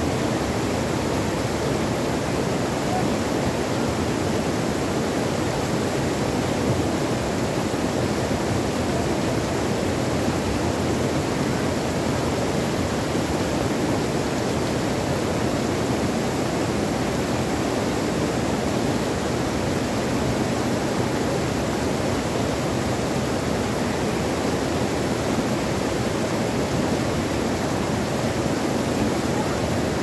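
Mountain stream spilling over boulders in several small cascades: steady rushing water.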